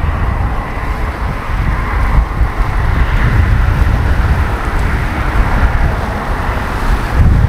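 Wind buffeting the microphone: a loud, uneven low rumble, with a steady hiss above it.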